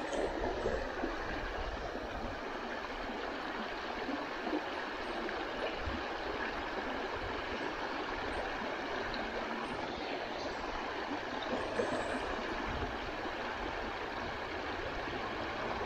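Brook water running steadily, an even rushing sound with an uneven low rumble underneath.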